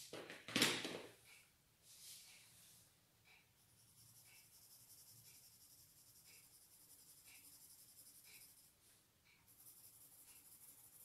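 Pencil lead scratching faintly across paper thick with wax crayon as a tree outline is sketched, in light strokes with small ticks about once a second. About half a second in there is a short, louder rustle or bump.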